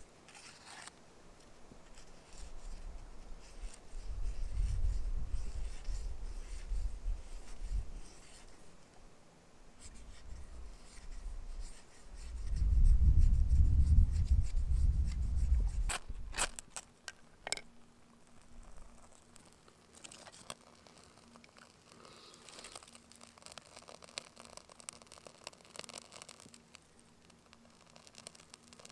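Knife blade scraping dry wood in short, scratchy strokes while tinder is prepared, with a few sharp clicks about two-thirds of the way in. Heavy low rumbles come and go, loudest around the middle.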